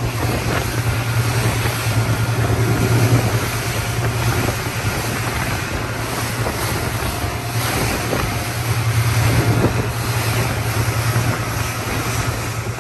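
Speedboat running fast: a steady low engine drone under the rush of spray and churning water from the hull, with wind buffeting the microphone.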